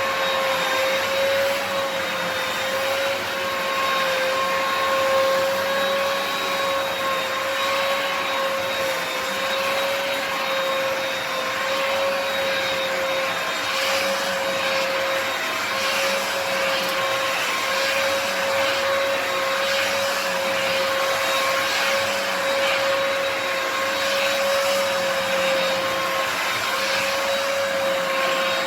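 Hoover PowerDash Pet upright carpet cleaner running steadily, a loud motor whine over a rushing hiss of suction.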